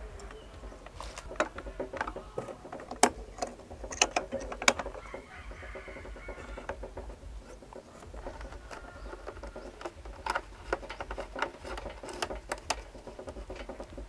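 Scattered clicks and light taps of hands handling a plastic electrical box and its porcelain cut-out switch cover, with a cluster of sharper clicks a few seconds in and another near the end.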